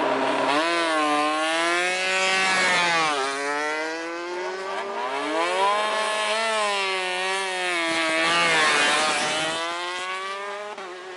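MotoGP racing motorcycle engine at high revs, its pitch climbing steeply and then dropping several times as it accelerates and backs off.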